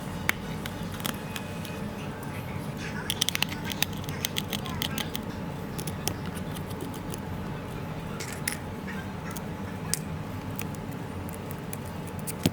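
Scattered small sharp clicks and taps, bunched about three seconds in, over a steady low background hum.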